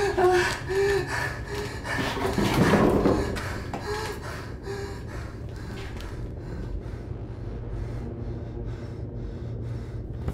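A man whimpering and gasping, with one loud sharp breath about two and a half seconds in, then quieter heavy breathing. A low steady hum sits underneath.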